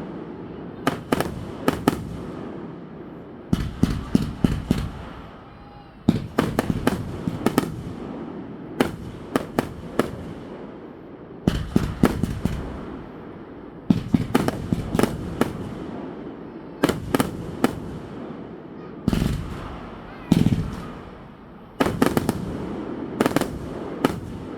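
Aerial fireworks bursting: a cluster of sharp cracks about every two seconds, each over a low boom that fades away.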